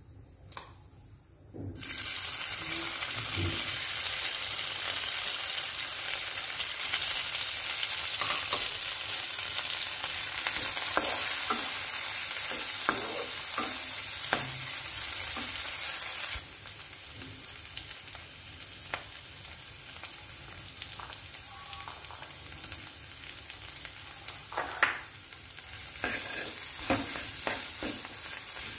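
Hot oil sizzling in a nonstick frying pan as boiled potato stuffing is fried and stirred, the spatula scraping and tapping against the pan. The sizzle starts about two seconds in and is loudest for the first half, then quieter, with the spatula knocks standing out.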